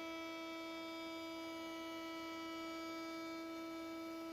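Router in a router table running at speed, a steady high-pitched whine that holds the same pitch throughout.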